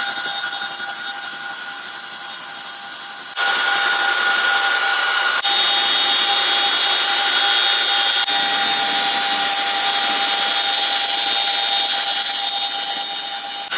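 CH-47 Chinook helicopter running, its twin turbine engines giving a steady high whine over rotor noise. The sound jumps abruptly in level a few times.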